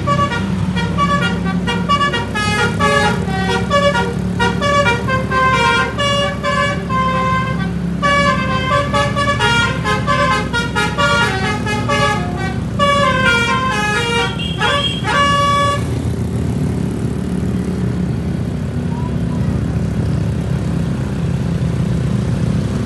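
A bus's basuri telolet horn plays a fast melody of short, pitched toots, with a sliding note near the end of the run, and falls silent about two-thirds of the way through. The bus engine runs steadily underneath throughout.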